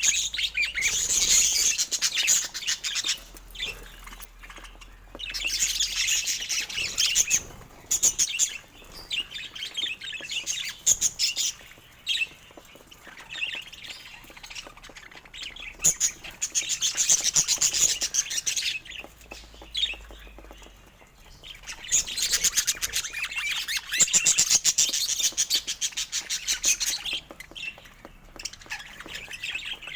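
Budgerigars chattering and warbling in fast runs of high chirps and squawks. The runs last a few seconds each and come in several bouts, with quieter pauses between them.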